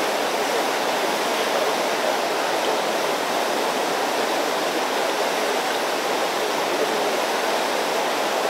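Steady rushing of river rapids, an even wash of water noise with no distinct events.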